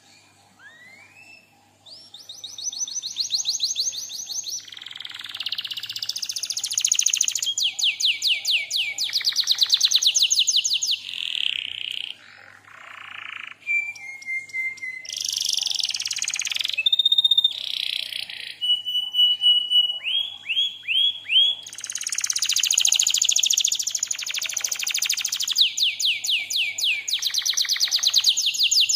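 Domestic canary singing a long, varied song that starts about two seconds in: fast trills of repeated notes, buzzy rolls and clear whistled notes, with short breaks between phrases.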